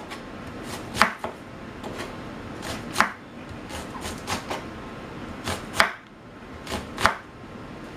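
Knife slicing an onion and knocking on a wooden cutting board in slow, uneven strokes, four of them sharper and louder than the rest.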